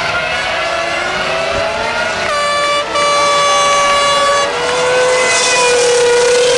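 Formula One cars' 2.4-litre V8 engines running at high revs as they pass through a corner, their pitch sliding and jumping with each gear change. A hiss of tyre spray off the wet track builds as one car comes by close near the end.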